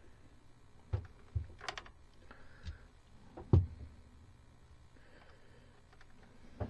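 A few scattered clicks and knocks of hands handling a light fixture and its wiring, the loudest about three and a half seconds in.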